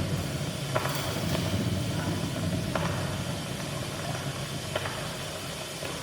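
Experimental improvisation on turntables and drums: a low, steady rumbling drone with a sharp click about every two seconds.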